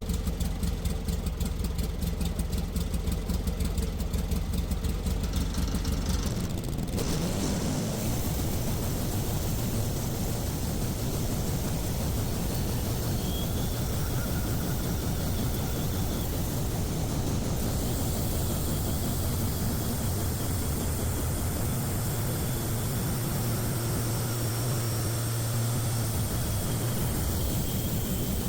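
Sawmill running while milling a poplar log into boards: an engine with its firing distinct for the first six or seven seconds, after which the sound changes to a steadier, denser drone as the saw works through the log.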